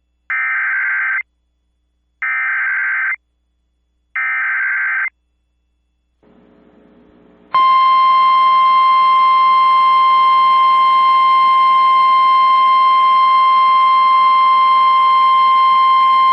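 Emergency Alert System SAME header: three short bursts of warbling data tones, about a second each and a second apart. After a pause with a faint hiss, the National Weather Service's single steady 1050 Hz alert tone comes in and holds for about nine seconds, signalling the start of a weather warning broadcast.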